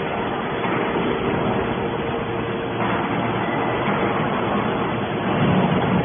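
Hydraulic scrap-metal baler running: a steady mechanical drone from its hydraulic power unit, with a faint steady hum.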